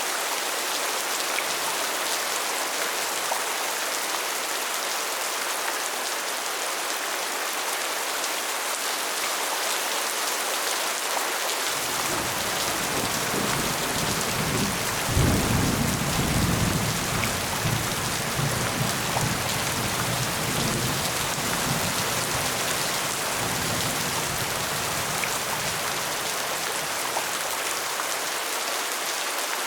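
Steady rain falling, with a roll of thunder: a low rumble builds about twelve seconds in, peaks in a loud clap a few seconds later, then rumbles on and dies away over the next ten seconds or so while the rain carries on.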